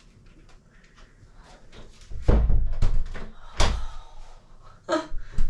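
Glazed back door being shut, with two heavy thuds about two seconds and three and a half seconds in.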